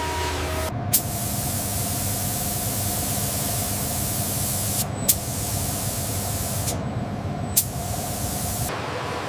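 Hissing spray in three bursts, each starting with a sharp click. The first burst is the longest, and the hiss stops shortly before the end.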